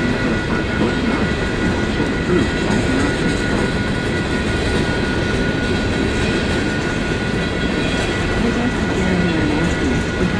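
Empty coal train cars rolling steadily past, a continuous rumble and rattle of wheels on rail with clickety-clack over the joints.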